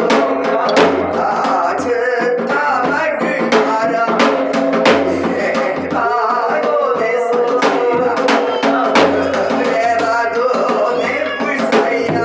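Korean shamanic ritual music: a voice sings with a wavering vibrato over frequent drum strokes.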